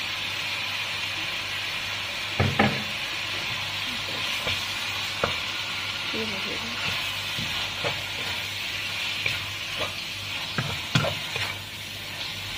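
Minced chicken sizzling in a hot wok with oyster sauce just added, a steady frying hiss while a spatula stirs it. Occasional knocks and scrapes of the spatula on the pan, the loudest about two and a half seconds in and again about eleven seconds in.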